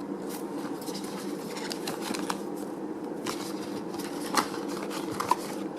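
Paper and packaging being handled: scattered light rustles and small clicks, over a faint steady hum.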